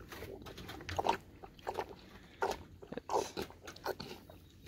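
A young calf slurping and sucking milk from a plastic bucket, with uneven short slurps and gulps about every half second.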